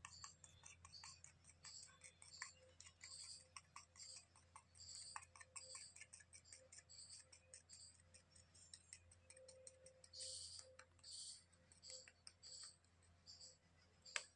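Faint, light ticking and clicking, a couple of ticks a second, from a small steel spoon tapping and scraping as it dribbles a thin line of powder onto a concrete floor.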